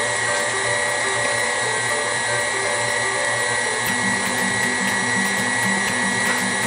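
KitchenAid Ultra Power stand mixer running steadily, its motor whirring as the flat beater mixes thick cake batter of butter, sugar and eggs in a stainless steel bowl.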